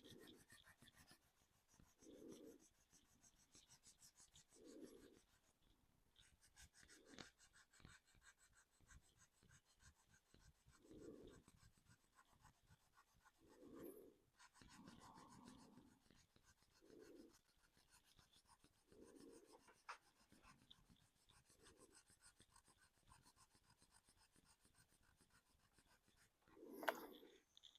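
Faint, rapid scratching of sandpaper rubbed over a painted 3D-printed plastic body, sanding back the paint. A single louder knock comes near the end.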